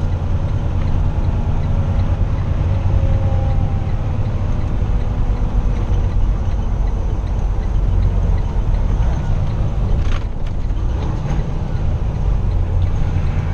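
Semi truck cab interior at highway speed: a steady low drone of the engine and road noise, with a few short clicks about ten seconds in.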